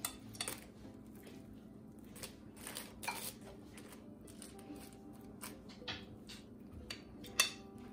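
Scattered soft rustles and light taps as pieces of soft bread are dropped by hand into a slow cooker with a plastic liner crinkling, over a faint steady hum; the sharpest tap comes near the end.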